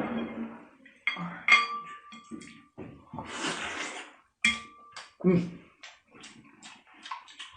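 Utensils clinking against dishes during eating: several sharp clinks, two of which ring briefly like china struck by chopsticks. Between them come noisy eating and handling sounds while the sea cucumber is dipped in sauce.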